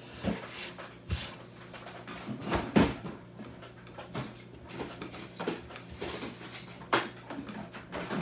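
Scattered sharp knocks and bumps at irregular intervals, about one a second, the loudest a little under 3 s in and again near 7 s in, over a steady low hum.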